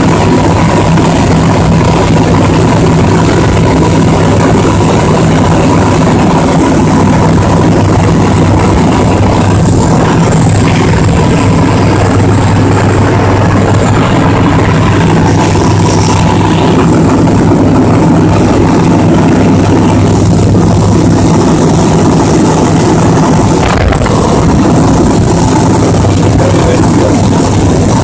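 Single-engine light aircraft's engine and propeller droning steadily in flight, heard loud from inside the cockpit.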